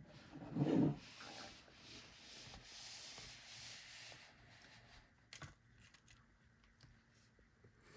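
Small tools and a tray being handled and set down on a workbench: rubbing and shuffling, a dull thump about a second in, and a few light clicks near the middle.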